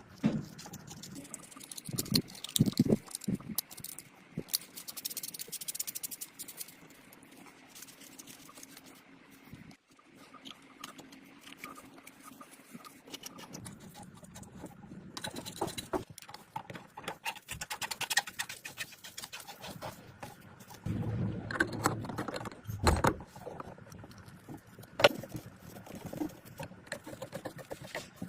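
Hands working on antique binoculars: irregular small clicks, taps and scraping of parts and tools, with a few louder knocks.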